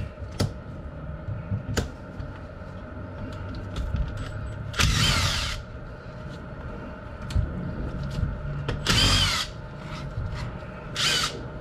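Small cordless drill running in three short bursts of under a second each, clearing packed dust out of the bolt and screw heads on a Weka core drill's motor housing.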